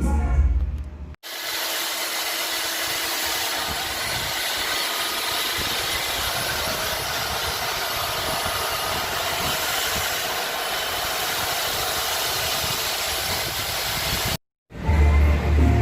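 About a second of loud, bass-heavy music, cut off abruptly by a steady, even hiss that runs about thirteen seconds and stops suddenly, followed by music again near the end.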